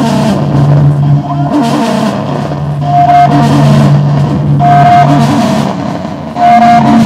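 Improvised free-noise music: a loud, dense wash of noise over a steady low drone, with a short high tone and a surge of noise that recur just under every two seconds.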